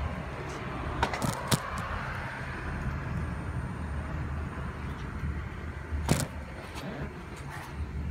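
Steady low rumble of background traffic, with a few sharp knocks: three close together about a second in and one more near six seconds.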